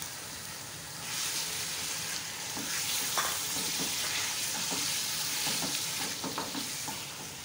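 Raw mutton pieces sizzling as they fry in hot oil in a pressure cooker, stirred and turned with a silicone spatula that scrapes against the pan. The sizzle grows louder about a second in. This is the first searing stage, frying the meat until its colour changes.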